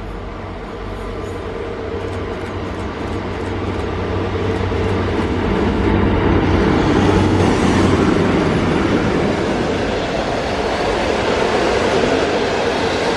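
EP07 electric locomotive and its passenger coaches running past along the platform. The rumble of wheels on rails grows louder as the locomotive draws level, about six seconds in, then carries on steadily as the coaches roll by.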